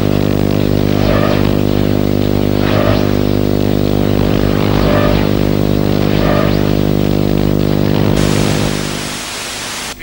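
Loud, rough buzzing drone in the distorted audio of a broadcast, with a muffled musical phrase coming back every second or two. About eight seconds in it gives way to a hiss of static that drops in level and fades out.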